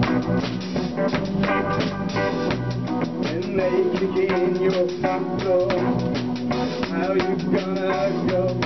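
Electric blues band playing live at rehearsal: drum kit with a steady beat, hollow-body electric guitar and a second electric guitar or bass, with a man singing over it.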